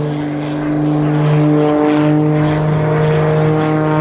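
Single-engine aerobatic propeller plane in flight, its piston engine and propeller giving one steady pitched note. For the first second or so the note blurs into a rougher noise, then it settles again.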